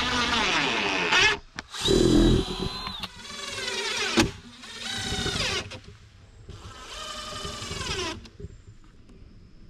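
A power tool running in about five short bursts, each about a second long, its pitch sagging within each burst as it works in the smoker's wall boards. There is a heavy thump about two seconds in and a sharp click a little after four seconds.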